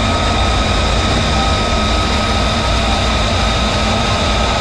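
F-35 Lightning II's F135 turbofan engine running at ground idle: a steady jet roar with a constant high whine over a low rumble.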